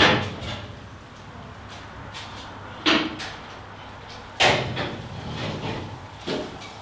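Pressed-steel plenum panel of a Holden HX One Tonner knocking and rattling against the cab's sheet-metal body as it is worked free and lifted out, with four sharp clanks: one at the start, one about three seconds in, one about four and a half seconds in, and one near the end.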